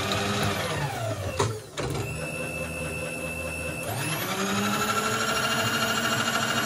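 Vevor X-axis power feed motor driving a mill table, its motor and gears whining. The whine drops in pitch in the first second, a click follows, and the feed then runs steady. About four seconds in the rapid-traverse (acceleration) button sends it up to a higher, faster whine that holds to the end.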